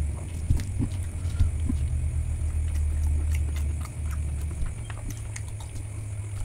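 A steady low rumble with scattered small clicks and smacks over it, typical of close-miked eating and chewing.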